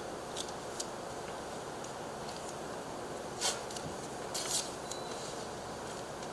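A strip of tape is pulled and torn and pressed on, giving a short tearing rasp about four and a half seconds in. Light handling clicks and paper rustles of the template come between, over a steady background hiss.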